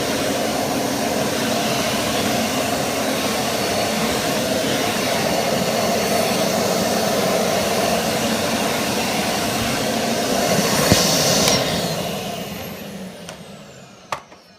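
Kärcher MV2 wet-and-dry vacuum cleaner running loud and steady while its floor head is worked over a hard floor. About eleven seconds in it is switched off and the motor winds down with a falling whine, followed by a couple of clicks.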